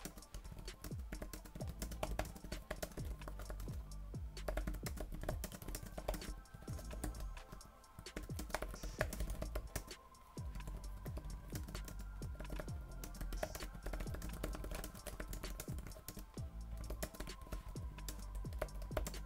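Fast, continuous typing on the Lenovo Chromebook Duet's detachable keyboard cover: a steady clatter of plastic keystrokes, with background music underneath.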